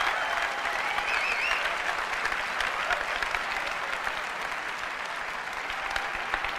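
Large audience applauding steadily, with one brief wavering call rising above the clapping about a second in.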